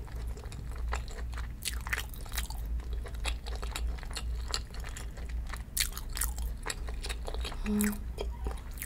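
Close-miked chewing of a mouthful of spicy gopchang-and-chicken stew, with many small wet mouth clicks and smacks. A short low hum from the eater comes near the end.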